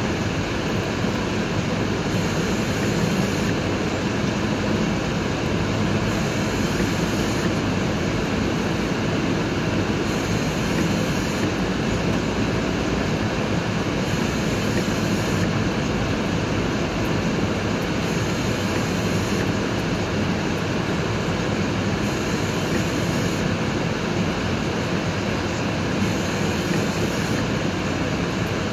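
Steady road noise inside a car's cabin as it drives slowly over packed snow: tyres rumbling on the snowy road with the engine running underneath.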